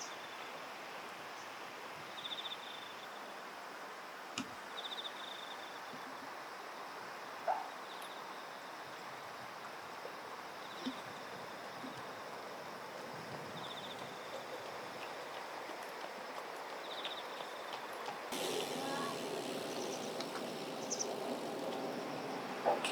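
Riverside ambience: a steady hiss of flowing water with a short, high trill repeating every two to three seconds, and a few faint clicks. The background grows fuller near the end.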